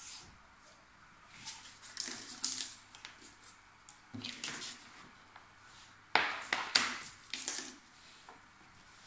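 Printed canvas rustling and scraping as it is gripped and pulled by hand over its frame, in three short bouts, the loudest after about six seconds.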